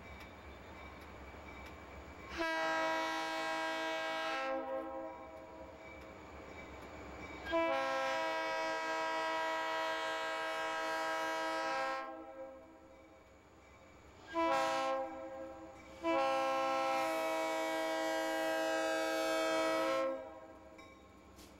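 Diesel locomotive air horn sounding the grade-crossing signal: two long blasts, one short, then a final long blast, each a chord of several tones. It sounds from Maine Central (Guilford) locomotive MEC 315 as it nears the crossing.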